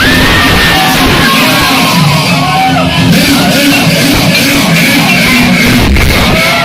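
Loud music playing, with many short swooping tones rising and falling over a steady low note.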